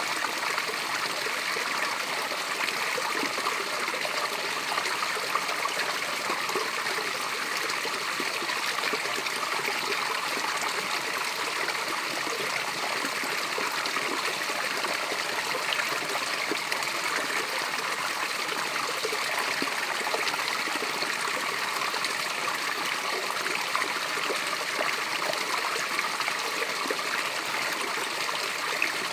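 Water pouring down a small waterfall and splashing in a steady, unbroken rush.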